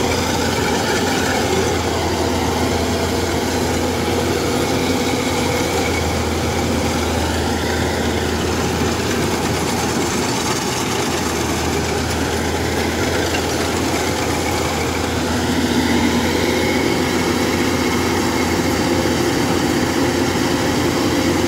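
Kubota DC-105X tracked combine harvester's diesel engine running steadily under load, its cutting and threshing gear working as it crawls through deep mud.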